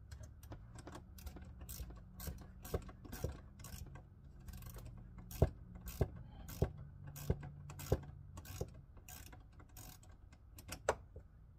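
Metal clicking and ticking of a 10 mm wrench working the battery terminal nut loose, in irregular strokes with sharper clicks about every half second to second through the middle.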